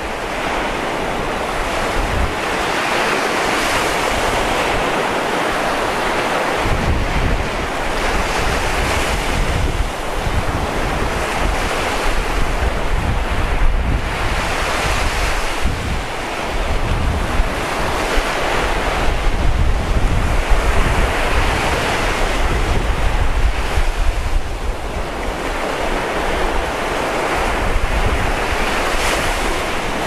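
Ocean surf breaking on a sandy beach: a continuous rushing wash that swells as each wave breaks, every few seconds.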